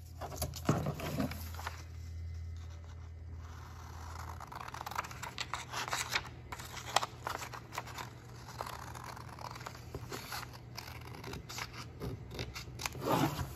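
Scissors cutting along the fold of a doubled sheet of letter-size paper, a series of irregular snips mixed with paper rustling and scraping as the sheet is handled.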